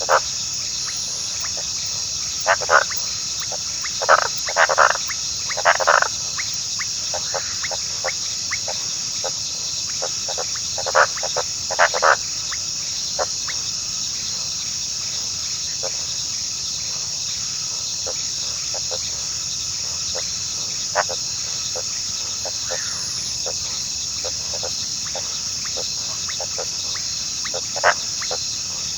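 Steady high-pitched insect chorus, with scattered short animal calls in clusters during the first half and one more near the end. No drawn-out howl.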